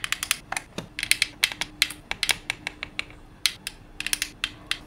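Rapid, irregular sharp clicks and taps of hard plastic as the alarm clock's plastic case and the hot glue gun are handled and pressed together.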